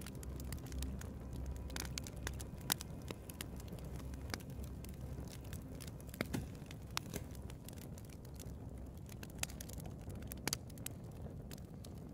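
Log fire crackling in a fireplace: irregular sharp pops and snaps over a low, steady rumble.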